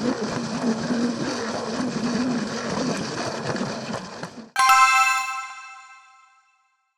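Plastic Plarail toy train running along its track with a rattling hum and light clicks. About four and a half seconds in, it is cut off abruptly by a single bright glockenspiel-like chime that rings out and fades over about two seconds.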